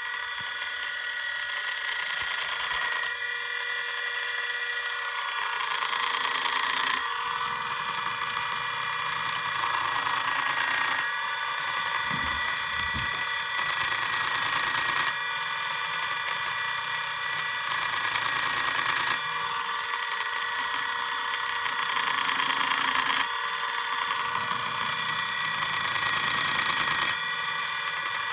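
DJI Phantom 2's brushless motor running without a propeller and stuttering, giving a steady high-pitched whine made of several tones that shifts a little every few seconds.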